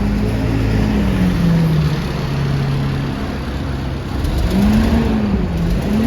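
Alexander Dennis Enviro400 double-decker bus running, heard from on board: a droning whine over the engine rumble, dipping in pitch around the middle and rising again near the end. It is the vacuum-cleaner-like "Hoover" whine this bus is known for.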